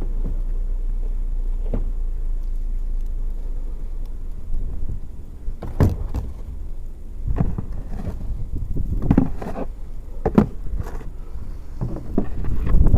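Snow shovel scraping and knocking in irregular strokes, starting about four seconds in, over a steady low rumble of wind on the microphone.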